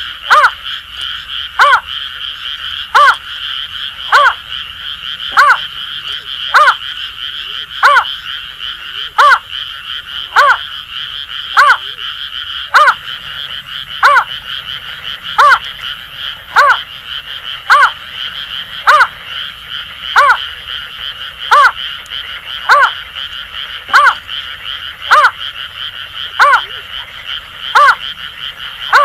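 Greater painted-snipe giving a short hooting call repeated evenly about every second and a quarter, over a continuous chorus of Asian grass frogs.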